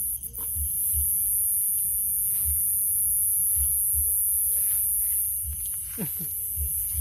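Loud, steady, high-pitched chirring of night insects in the field, with irregular low thumps underneath. Near the end there is a brief pair of falling tones.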